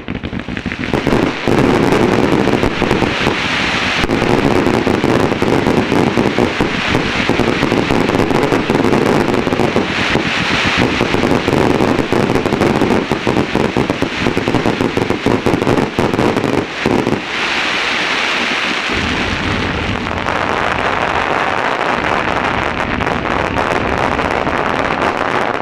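Aerial fireworks at close range: a dense, unbroken barrage of shell bursts and crackle that starts abruptly and cuts off suddenly at the end.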